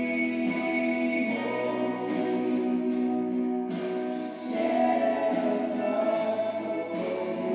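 A church worship song: voices singing over guitar accompaniment.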